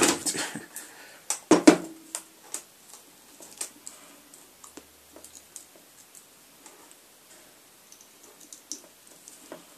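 Light plastic clicks and taps from hands handling and pressing down a clear plastic panel cover on a Casio keyboard's casing. There are a few louder knocks in the first two seconds, then sparse faint ticks.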